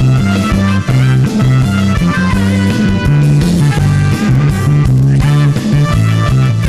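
Instrumental music with a steady, repeating bass line.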